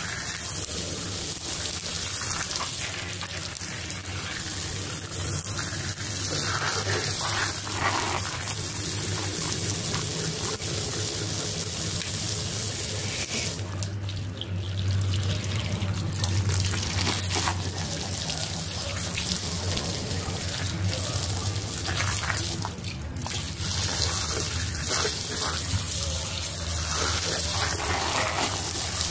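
Water running and splashing steadily, with a low hum underneath.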